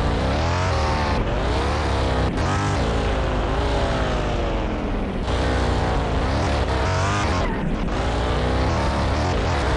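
Bentley Bentayga's engine revving under load, its pitch rising and then dropping back several times over a steady low hum.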